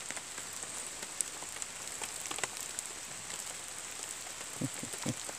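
Steady rain falling, an even hiss with scattered drops ticking close by. Two soft low thumps come near the end.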